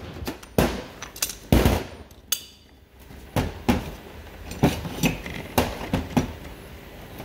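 A string of irregular sharp metallic knocks and clanks, about a dozen, with the strongest about one and a half seconds in. They come from a bush press tool and differential housing parts being handled and set down on a metal workbench.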